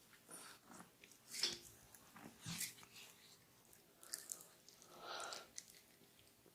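Hands working a customer's head and neck in a barber's massage: faint, irregular rubbing and squishing of skin and hair, with a few sharp clicks and slaps.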